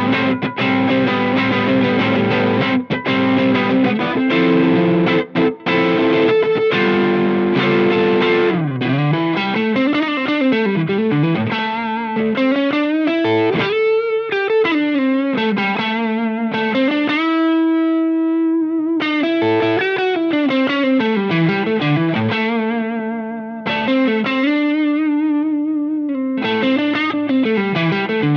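Electric guitar played through a Cornerstone Antique Classic Drive V2 Tube Screamer-style overdrive pedal. It starts with driven rhythm chords, then about eight seconds in switches to single-note lead lines with string bends and vibrato, including one note held for a couple of seconds.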